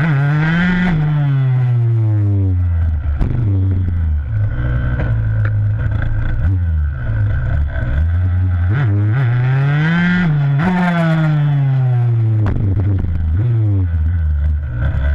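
Freestyle motocross dirt bike engine, heard close from the bike-mounted camera, revving hard twice, about a second in and again about ten seconds in: each time the pitch climbs to a peak and then falls away over a few seconds. Between the two, the engine runs with short throttle blips.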